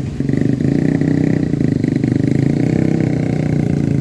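A vehicle engine running loudly and steadily, with a fast even firing pulse.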